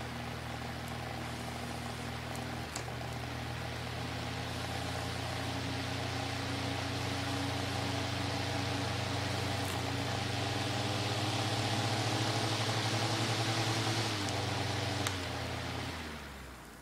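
Massey 9-inch electric box fan running before cleaning, in good working order: a steady motor hum under the rush of air from the blades. There is a click about three seconds in, and another near the end, after which the hum and airflow die away as the fan is switched off and winds down.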